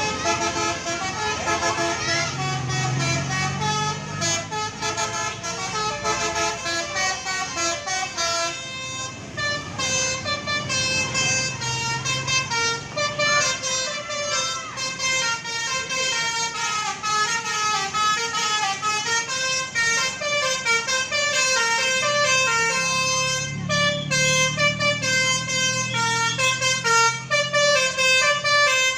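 Bus 'telolet' multi-tone musical horn of the Basuri type playing fast runs of short, clear notes that step up and down in a repeating tune. A low rumble swells under it twice, a couple of seconds in and again near the end.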